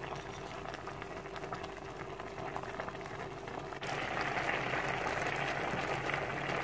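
A pot of mustard greens, spinach and fenugreek bubbling on the stove in its own water, cooking down. The bubbling and crackling is steady and gets louder about four seconds in.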